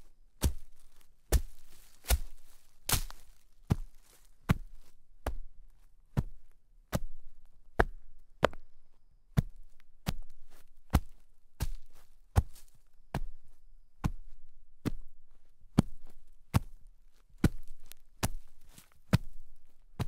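Footsteps crunching in snow at a steady walking pace, about one step every 0.8 seconds, each a sharp crunch that quickly fades.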